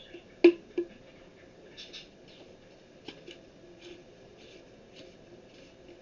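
Bicycle hand pump parts being handled and fitted together: two sharp knocks near the start, then faint, scattered squeaks and scrapes as the rubber seal is worked tight onto the pump.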